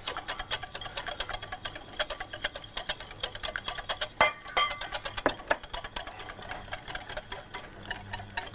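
Wire whisk beating egg yolk in a glass bowl, its wires clicking rapidly and steadily against the glass. Oil is being drizzled in as a garlic mayonnaise emulsifies.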